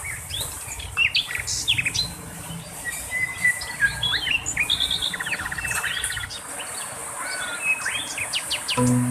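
Domestic canary singing: a quick, varied run of chirps and whistles with a fast, even trill in the middle. Background music comes in near the end.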